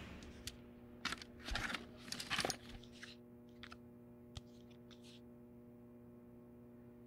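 Rustling and clicks as a handbag is searched and a small paper photograph is pulled out, in irregular bursts during the first three seconds, then a few light clicks, over a steady hum.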